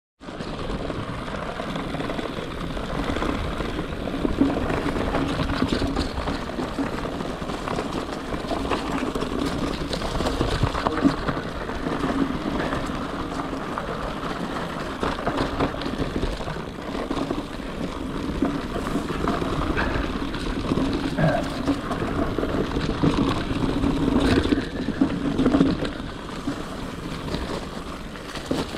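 A Votec 29er mountain bike ridden down a dirt trail: a steady rush of wind and tyre noise with many small knocks and rattles from the bike over rough ground.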